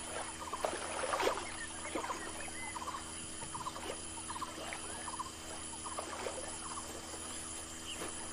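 Wildlife ambience: many short chirping calls from small animals, repeating irregularly several times a second, over a faint steady hum.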